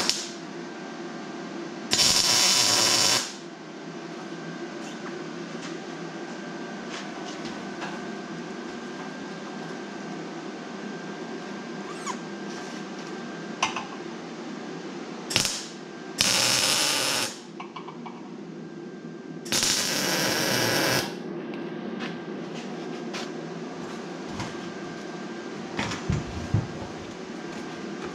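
MIG welder tack-welding an exhaust pipe onto a steel muffler: a handful of short hissing, crackling arc bursts, each about a second long or less, with light clicks from handling the work near the end.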